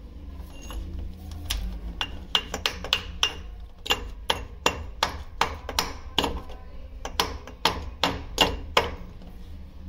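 Hammer striking repeatedly, a run of sharp strikes about two or three a second.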